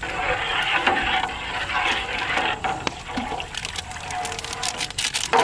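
Water running and splashing, loudest for about the first two and a half seconds.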